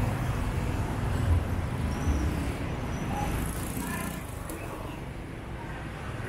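City street traffic: motorbike and car engines running and passing, a steady rumble that is louder in the first couple of seconds and eases off.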